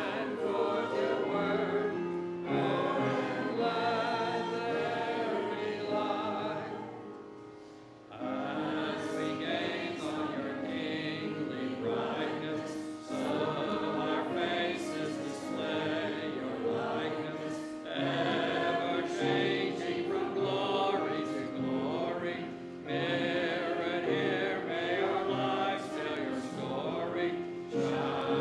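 A group of voices singing a hymn together, with a short break about seven seconds in before the next phrase begins.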